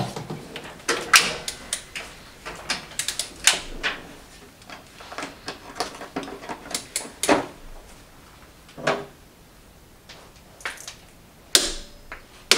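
Irregular metallic clicks and knocks of a socket wrench on an extension being fitted to and worked on the injection pump sprocket nut of a BMW M51d25 diesel engine, tightening the nut. The clicks come scattered and uneven, with a louder pair near the start and another near the end.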